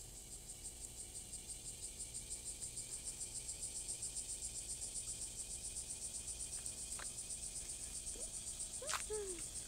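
Cicadas singing: a high, even buzz that pulses about six times a second and swells slightly over the first few seconds.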